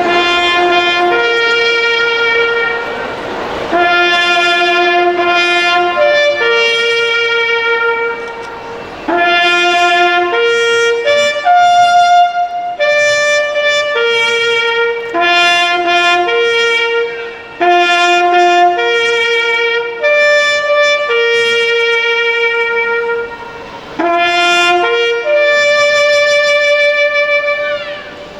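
Solo trumpet playing a slow, solemn melody of long held notes, the call played during a moment of silence at a Turkish remembrance ceremony.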